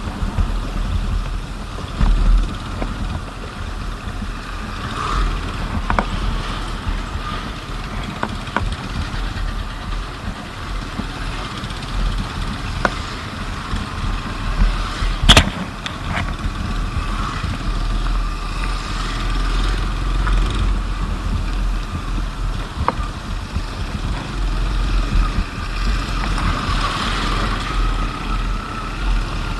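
Motor scooter running at riding speed over a rough road under construction, with a steady low rumble and scattered knocks. One sharp knock about fifteen seconds in is the loudest.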